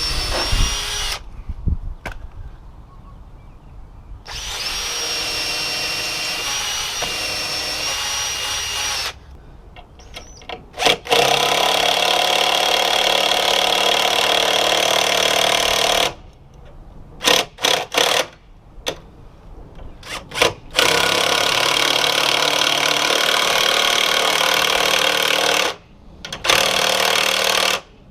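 Power drill pre-drilling holes into the gate for a new latch. It starts with a short run carrying a steady high whine, then a run of about five seconds with the same whine. Three louder, rougher runs of several seconds each follow, with short blips of the tool between them.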